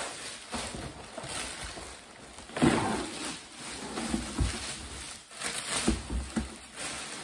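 Plastic wrapping rustling and crinkling against a cardboard box as a plastic water camper is pulled up out of it, with uneven bursts, loudest about two and a half seconds in.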